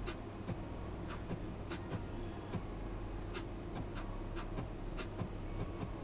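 Yu-Gi-Oh trading cards being flipped through by hand: light, irregular clicks and short slides of card stock, about one to three a second, over a steady low hum.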